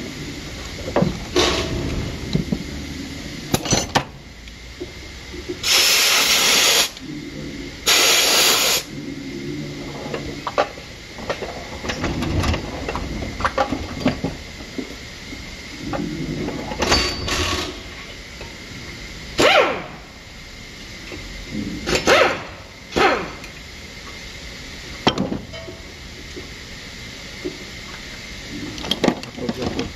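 Hand tools clicking and clanking against a car's front wheel hub and steering knuckle. About six seconds in come two loud hissing bursts of about a second each.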